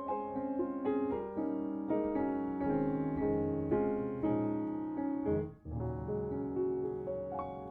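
Soft background piano music, a slow melody of single notes over held chords, with a brief drop in level about five and a half seconds in.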